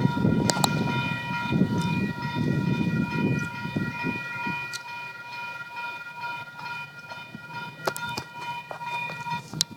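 A Union Pacific diesel locomotive's air horn held in one long steady chord, cutting off just before the end, over the low rumble of the train with a few sharp clicks.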